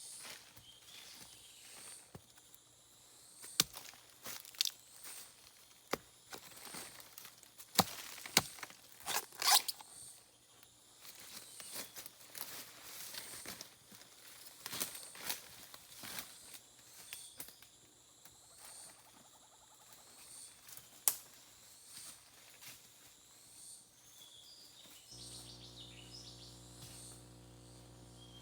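Scattered sharp snaps and rustles of twigs and leaves in forest undergrowth, over a steady high chirping of insects. A low steady hum comes in near the end.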